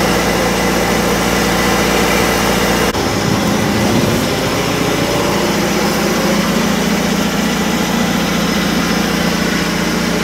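A steady mechanical hum, like an engine running at idle. The deepest rumble drops out abruptly about three seconds in, while the rest of the hum carries on.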